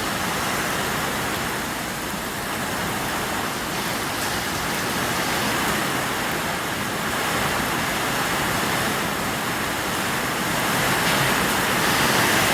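Steady rain falling in a thunderstorm, an even hiss that grows a little louder near the end.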